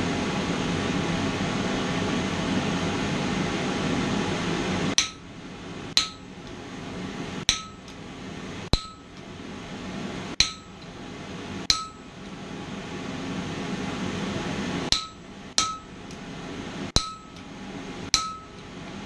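Blacksmith's hammer striking a hand-held tool on hot mild steel on the anvil, cutting a decorative line: about ten single blows roughly a second apart, each with a short metallic ring, with a pause of a few seconds midway. A steady rushing noise comes before the first blow, about five seconds in.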